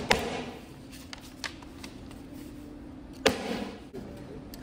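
Hand staple gun firing staples through paper into a board: two sharp snaps about three seconds apart, with a few faint ticks between.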